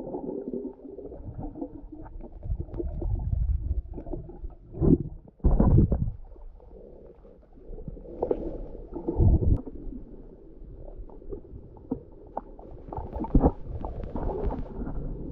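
Muffled underwater sound picked up by a submerged camera: low rumbling water movement with irregular dull thumps and bursts, the loudest about five to six seconds in.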